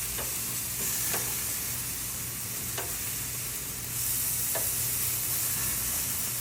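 Marinated chicken breasts sizzling on a grill: a steady hiss with a few small pops, growing louder about four seconds in.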